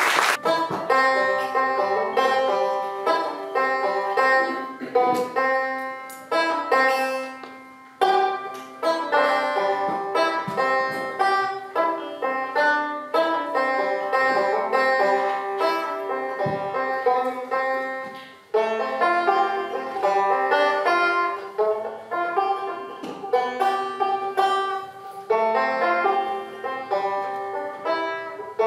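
Solo banjo playing a tune of plucked notes and chords, with short breaks between phrases about eight and eighteen seconds in.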